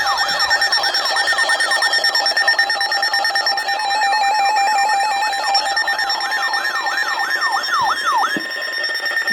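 Emergency alert signal for a tornado warning: an electronic tone sweeping down in pitch over and over, a few times a second, over steady high tones. It stops a second before the end.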